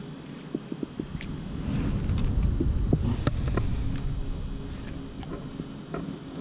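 Wind rumbling on the microphone, swelling for a few seconds in the middle, with scattered light clicks and knocks of fishing tackle being handled aboard a kayak.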